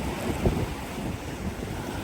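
Strong wind buffeting the microphone: an uneven, gusty low rumble with irregular low thumps.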